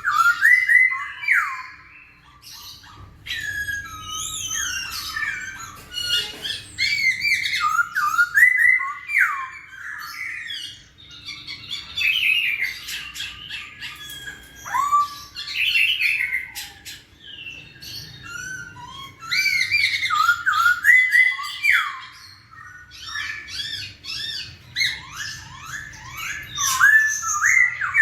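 Black-throated laughingthrush (poksay Hongkong) singing a long, varied song of rapid whistled notes that swoop up and down, broken by short pauses. A faint steady low hum runs underneath.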